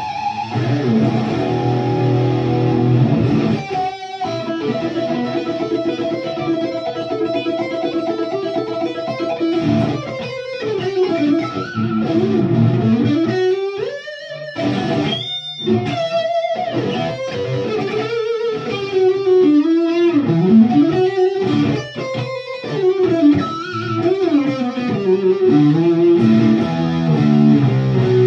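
PRS SE Custom 24 electric guitar played through an amp: a ringing chord for the first few seconds, then a lead line of held notes, string bends and vibrato, and quick runs.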